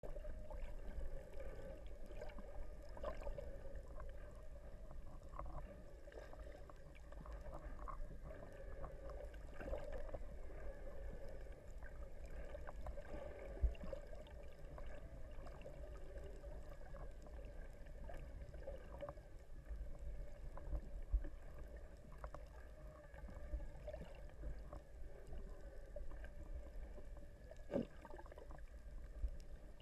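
Underwater sea ambience picked up by a submerged camera: a low, muffled rumble of moving water with a steady hum, and scattered faint clicks and knocks, the sharpest about 14 and 21 seconds in.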